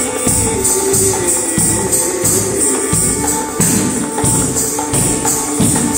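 Dance music with a steady beat of jingling percussion over a held melodic line.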